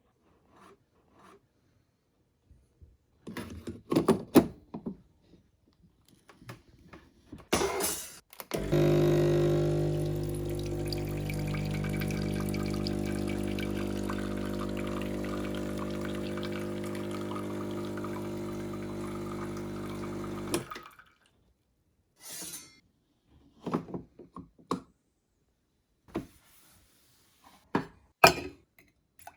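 Rondell RDE 1105 coffee machine brewing: its pump hums steadily for about twelve seconds, starting and stopping abruptly, with liquid running into the cup. Before and after come clicks and knocks from handling the machine and cup, and some dripping.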